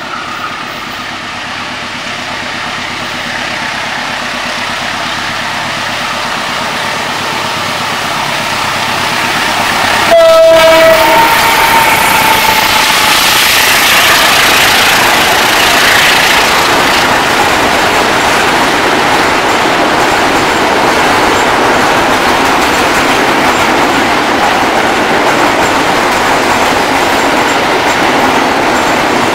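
Diesel locomotive hauling a fuel tank train, its engine growing steadily louder as it approaches. About ten seconds in comes a short horn blast, then the steady rumble and clickety-clack of the tank wagons rolling past.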